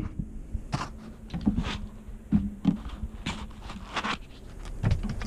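Handling noise: a car amplifier and its packaging moved about by hand, giving scattered light knocks and rustles over a faint low steady hum.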